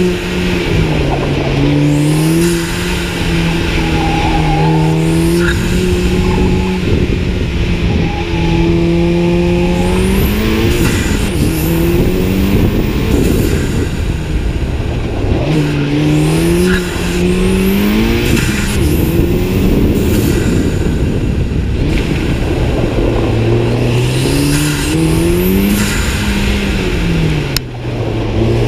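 Big-turbo Mk7 Volkswagen Golf R's 2.0-litre turbocharged four-cylinder driven hard around autocross cones. The engine note climbs and drops again and again as it accelerates, shifts and lifts off, with a high whistle rising and falling over it.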